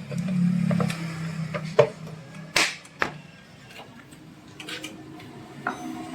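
A brief low hum in the first second, then a few sharp metallic clicks and knocks of tools and parts being handled while the motorcycle engine's covers are refitted.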